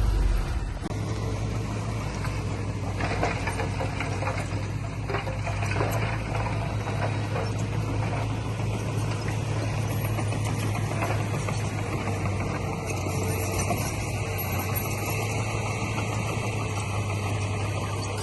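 Diesel engine of heavy earthmoving machinery running steadily, with a scatter of clanks and rattles a few seconds in.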